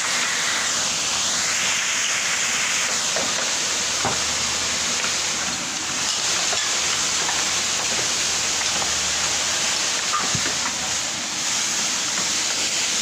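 High-pressure water jet from a burst underground water main gushing through torn asphalt: a loud, steady rushing hiss. A few faint clicks about four and ten seconds in.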